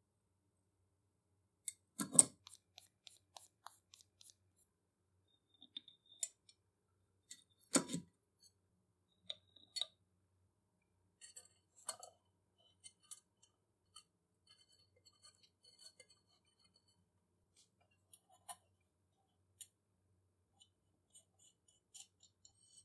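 Scattered clicks and light clinks of small hard parts being handled, with two sharper knocks about two and eight seconds in.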